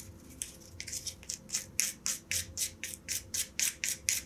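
Fur being worked off a piece of hare's mask for thorax dubbing in quick, even strokes, about four a second, growing louder after the first second.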